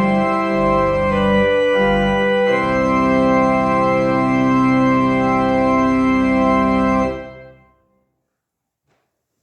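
Church organ playing chords, ending on a long held final chord that is released about seven seconds in and dies away in the room's reverberation. A few faint knocks follow in the quiet.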